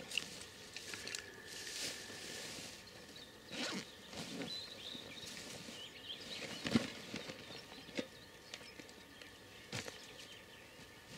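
Handling of a backpack and gear in dry grass: rustling, the backpack being opened and set down, with a few sharp knocks spread through.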